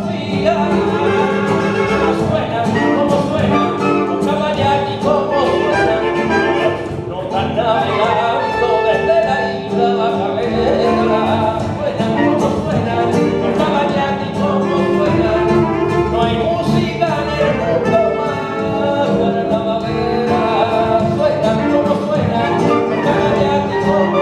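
A rumba played live by a band, with voices singing over it and a steady beat.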